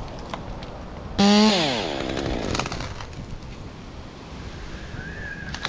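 Two-stroke chainsaw revved hard for a moment, then its engine note falls steadily as the throttle is released and the saw slows.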